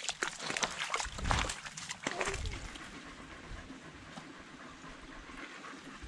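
A dog panting close by, with rustling and knocks near the microphone during the first two seconds or so.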